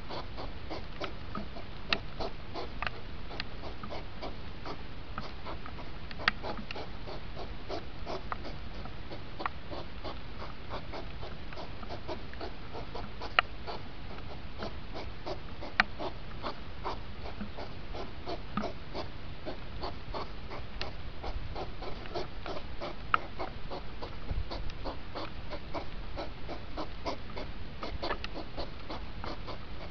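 Sped-up recording of rutting hedgehogs snorting and huffing. The snorts run together into a dense run of quick clicks and snuffles, with a few louder sharp clicks scattered through.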